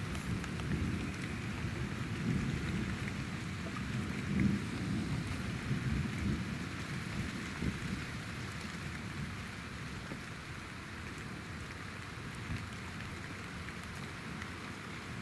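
Steady rain falling, with a low rolling rumble of thunder through the first half that dies away about eight seconds in.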